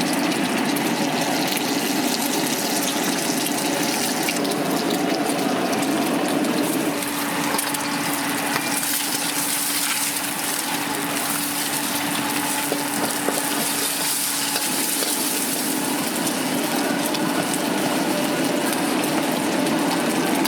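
Steady rushing noise of a street-stall wok station, most likely the gas wok burner running at full flame. The hiss grows brighter for several seconds midway, with a faint steady hum underneath.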